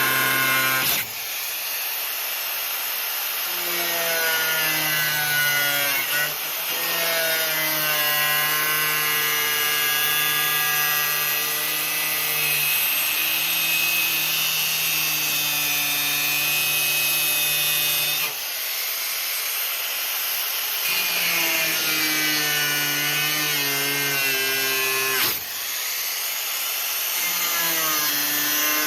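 Handheld electric power tool working the steel tubing, its motor pitch sagging under load and then holding steady over a harsh hiss. It eases off briefly three or four times before bearing in again.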